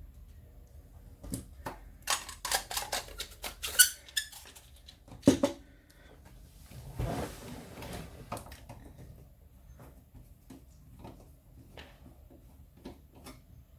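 Screwdriver and small metal parts being handled while undoing screws on a computer power supply's case: a quick run of sharp clicks and clinks, a brief scraping rustle just after the middle, then a few scattered ticks.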